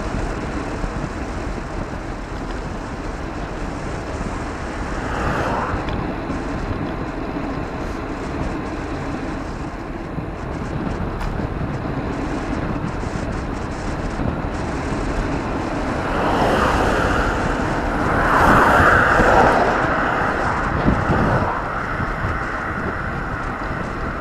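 Wind rushing over the microphone of a camera on a moving bicycle, with steady road noise. Vehicles pass about five seconds in and again in a longer, louder swell from about sixteen to twenty-one seconds.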